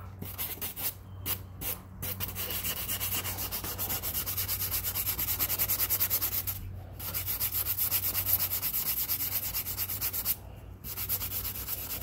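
Hand sanding block rubbed quickly back and forth over the painted wing edge of a Super Scorpion RC jet, about five strokes a second, with a few short pauses. The sanding rounds over and smooths a chipped spot in the wing before a paint repair.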